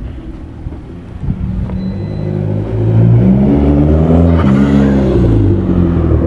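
A car engine revving: its pitch climbs and then steps back down, loudest from about three seconds in.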